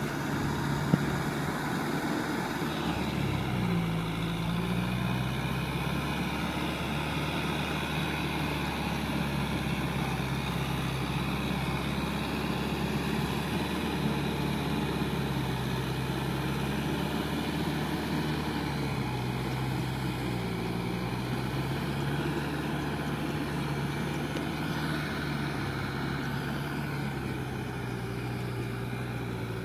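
Kubota M6040SU tractor's four-cylinder diesel engine running steadily under load as it drives a rear rotary tiller through flooded paddy mud. The engine note dips and recovers a few times. There is one sharp click about a second in.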